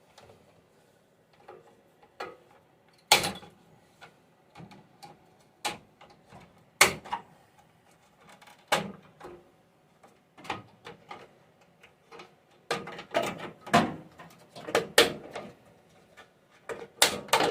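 Sharp plastic clicks and knocks, irregular and spread out, from prying and handling the cover trim of a Samsung microwave door. The loudest come about three and seven seconds in, and a quick cluster follows in the second half.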